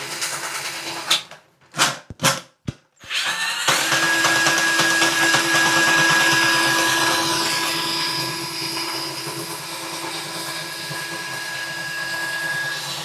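Cordless Ryobi drain auger's motor running with a steady whine while its cable works into a clogged shower drain. It stops about a second in, gives three short blips, then runs again steadily from about four seconds in.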